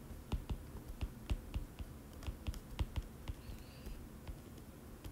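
Stylus tip tapping and clicking on a tablet's glass screen during handwriting: an irregular run of light clicks, several a second.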